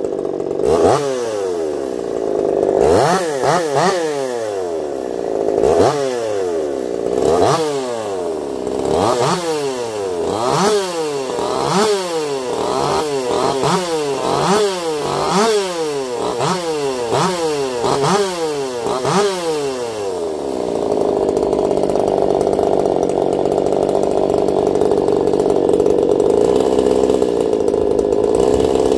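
Modified two-stroke Echo CS-4910 chainsaw with a taper-top piston, open crank and ported cylinder, revved over and over, each rev rising and falling in pitch, the revs coming quicker until about one a second. About twenty seconds in it is held at a steady high speed, a little louder.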